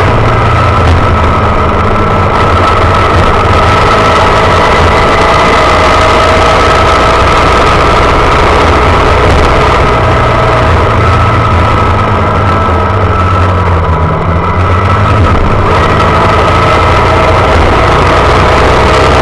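Honda Monkey's small single-cylinder four-stroke engine running steadily under way, with a heavy low rumble on the handlebar-mounted microphone. About two-thirds through, the engine note dips briefly as the throttle eases off, then picks up again.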